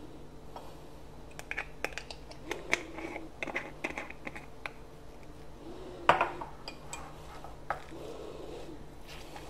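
Small glass-on-glass clicks and clinks from a spice jar and spoon against a glass mixing bowl while sesame seeds go into the chicken filling, with one louder knock about six seconds in.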